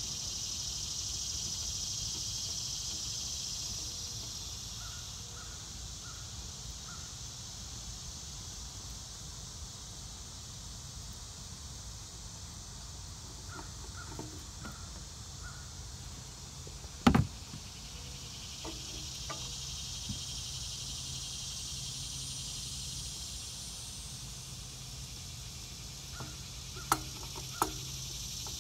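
Outdoor ambience of insects buzzing steadily, the buzz swelling and fading. A bird calls three times in short runs of about four notes. A single sharp knock past the middle and two clicks near the end come from hands working a new spin-on hydraulic filter onto its mount.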